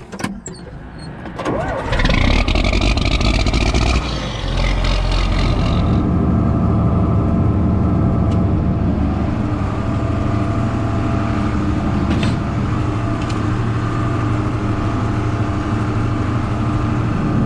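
John Deere 4640 tractor's six-cylinder diesel engine starting up about two seconds in, then running steadily.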